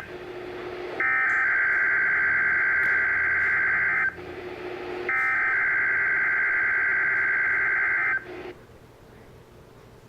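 NOAA Weather Radio SAME digital header: harsh, buzzing data tones sent in two bursts of about three seconds each, a second apart. They close the three-burst coded header that announces a Required Weekly Test.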